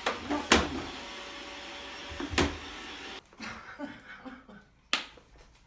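Robot vacuum cleaner running with a steady hum and a faint whine, cut off abruptly about three seconds in; a few sharp knocks sound over it, the loudest near the start.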